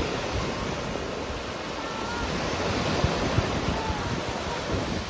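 Sea waves washing onto a sandy beach in a steady surf, with wind buffeting the microphone in low rumbles. A few faint short whistles sound over the surf around the middle.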